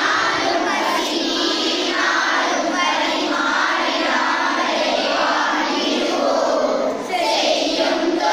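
A large class of schoolchildren singing a Tamil verse together in unison, to a melody, reading from their textbooks. The singing dips in a brief breath pause about seven seconds in and then carries on.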